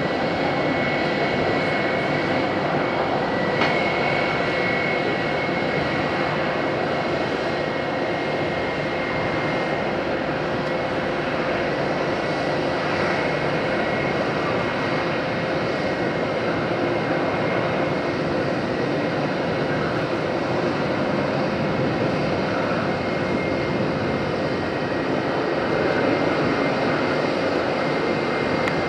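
Boeing 777-200LR's twin GE90 turbofan engines running as the jetliner rolls out along the runway just after touchdown: a steady jet noise with a faint held whine, a little louder near the end.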